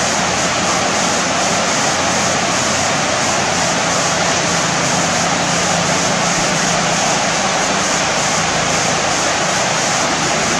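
Steady rush of water spilling over a low concrete weir into shallow water.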